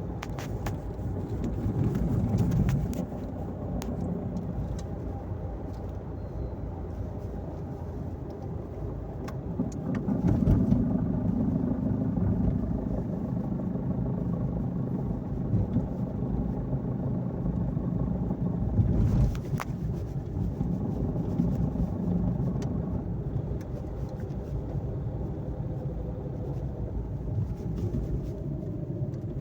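Audi A2 1.2 TDI three-cylinder diesel engine running, with the unusual noise that the owner finds strange. The engine sound swells louder a few times, and there are scattered sharp clicks.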